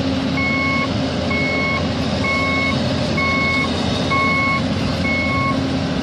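Heavy machinery's reversing alarm beeping steadily, about one beep a second, six in all, over a diesel engine running.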